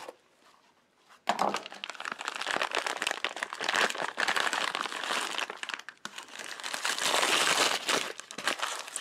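Plastic bag crinkling and rustling as a part is pulled out and unwrapped from it, starting about a second in.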